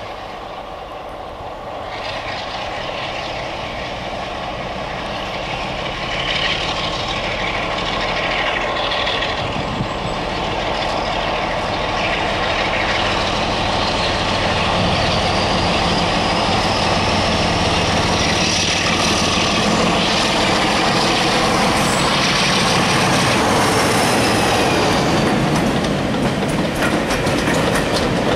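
Diesel locomotive hauling a passenger train, its engine growing steadily louder as it approaches and passes. A high whine slowly rises in pitch through the middle. Near the end the coaches roll past with wheels clattering over the rail joints.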